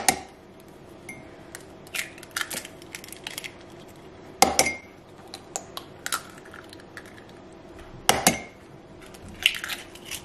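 Metal teaspoon clinking and knocking against a ceramic mug as eggshell is worked in it: several sharp clinks a second or two apart, some leaving a short ringing tone.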